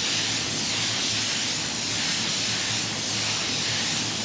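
Paint spray gun hissing steadily with air and silver metallic basecoat flowing from the trigger held open, rising and falling slightly as it sweeps across the panel. The gun is set with fan and fluid wide open at about 13–14 PSI, laying a wet coat.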